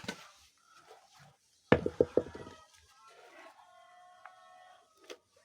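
A quick run of three or four thuds, a pestle pounding in a mortar, about two seconds in. Then chickens calling faintly.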